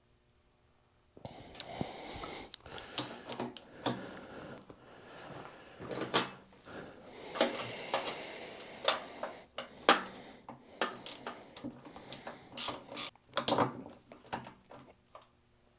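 Hand tools working on metal: irregular clicks, knocks and scraping while a bench vise is being fastened to a steel workbench. It starts about a second in.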